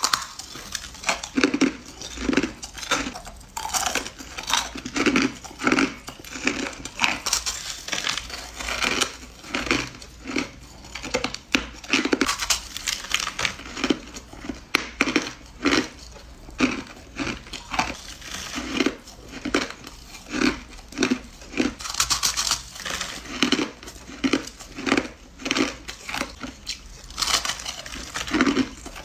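Hard crushed ice being bitten and crunched between the teeth, one crisp crunchy bite after another, roughly one or two a second.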